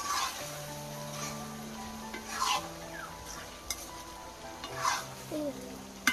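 A metal ladle scraping and stirring a bottle gourd and snakehead fish curry in a metal pan, in three loud strokes about two and a half seconds apart, with the pan sizzling between them.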